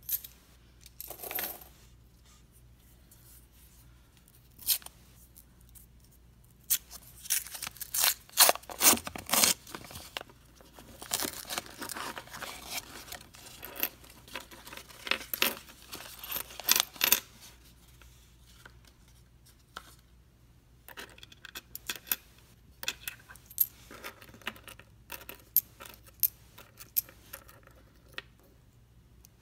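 A paper penny roll wrapper is torn open and copper pennies spill and clink together on a wooden table, densest in the middle stretch. Later, small quick clicks as the pennies are slid apart and handled one by one.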